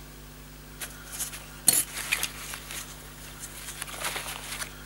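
Small clicks, taps and scuffs from fingers handling thin wire leads against the contacts of a small electroluminescent backlight. There are several short taps, the loudest about a second and a half in and a cluster near the end, over a faint steady low hum.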